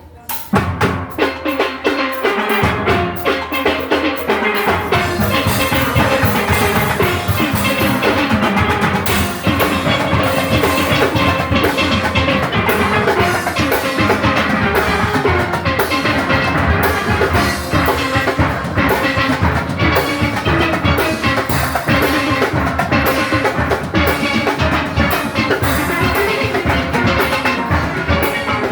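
Steel orchestra playing: massed steelpans over drum kit and percussion. The band comes in together at the start, and the low bass pans fill in a few seconds later.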